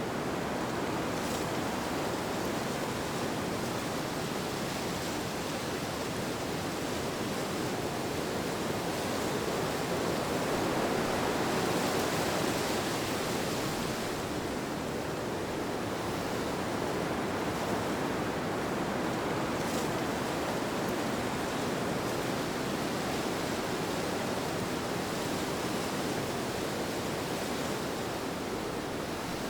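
Steady rushing wind ambience that swells gently about ten seconds in and eases again.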